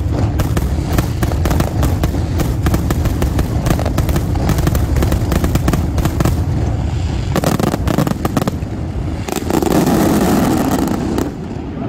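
Grand-finale fireworks barrage: a dense, rapid volley of bangs and crackling shell bursts that swells into a rumble, then thins out near the end.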